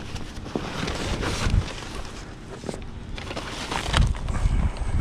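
Cardboard boxes and plastic trash bags being shifted and handled, with irregular rustling and scraping and a couple of heavier thumps, one about a second and a half in and one near the end.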